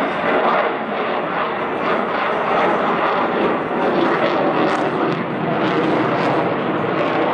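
Steady jet engine noise from a Sukhoi Su-35 fighter's twin afterburning turbofans as it manoeuvres in flight.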